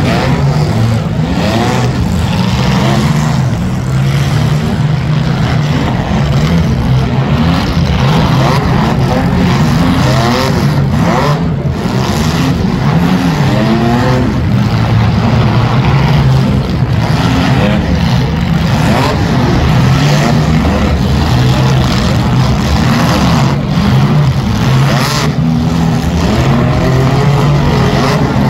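Several compact demolition-derby cars' engines revving and running hard together, the pitch rising and falling as drivers floor it. There are a few brief sharp knocks as the cars collide.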